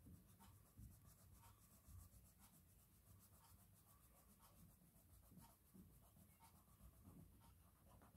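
Faint scratching of a crayon colouring in on a paper page, in short repeated strokes.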